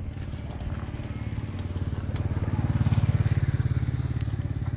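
A motorbike engine going by on the road, its fast low putter growing louder to a peak about three seconds in and then fading.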